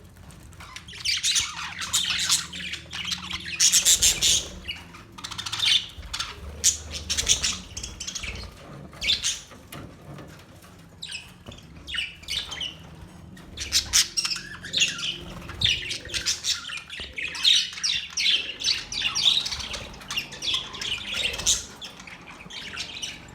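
Budgerigars chattering and squawking: rapid, scratchy, high chirps that come in clusters with short lulls between them.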